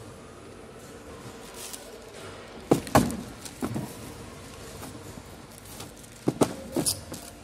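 Shrink-wrapped packs of plastic drink bottles being handled and set down on a cardboard tier sheet: sharp thumps and knocks, two close together a little under three seconds in, a smaller one soon after, and two more a little after six seconds.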